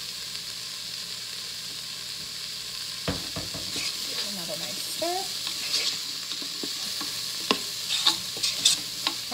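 Diced onion, carrot and celery sizzling in oil in an electric pressure cooker's inner pot on the sauté setting, with the onions almost translucent. From about three seconds in a wooden spoon stirs and scrapes through the vegetables, with a few sharp knocks of the spoon against the pot near the end.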